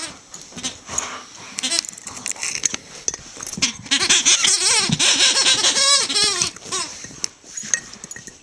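Greyhound chewing a rubber squeaky toy, squeezing out a run of wavering squeaks through the middle of the stretch, with scattered knocks and rustles from the toy and bed.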